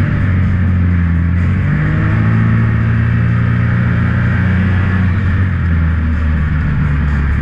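Can-Am Maverick X3's turbocharged three-cylinder engine pulling hard and steadily as the side-by-side climbs a sand dune, heard from inside the open cab.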